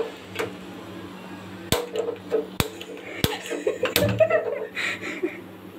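Gas stove burner being lit: several sharp clicks, and the burner catches with a short soft rumble about four seconds in.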